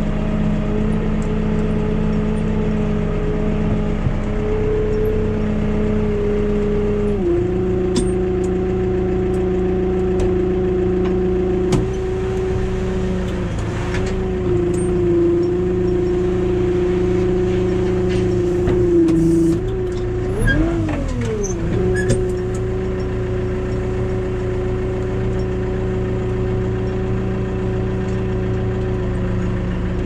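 Tractor diesel engine running steadily at raised revs, driving the hydraulics that tip a loaded trailer while the tractor creeps forward. About seven seconds in the engine note steps down slightly, and around twenty seconds the revs briefly dip, rise and fall back before holding steady again.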